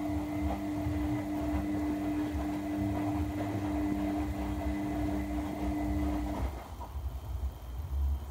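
A steady machine hum with one strong low tone, like a household appliance running, cuts off suddenly about six seconds in. An uneven low rumble carries on beneath it.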